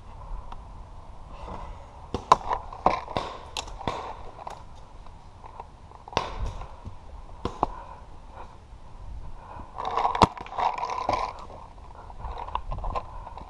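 Scattered sharp pops and cracks of paintball fire around a wooden bunker, loudest in a cluster a couple of seconds in and once more near the end, over scuffing and rubbing of gear close to the microphone.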